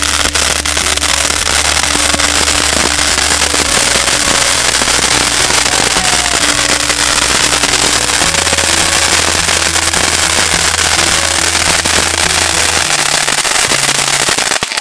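Ground fountain fireworks spraying sparks: a steady loud hiss with dense crackling. Background music with a stepping bass line plays under it.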